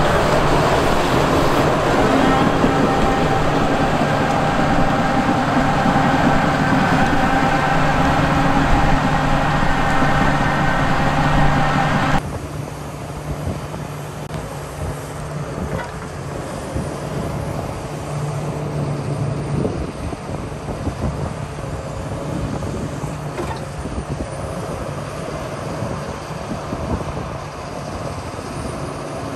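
Kobelco SK380SR excavator's diesel engine running steadily with a constant low hum and a steady higher whine over it. About twelve seconds in the sound cuts abruptly to a quieter, rougher engine sound.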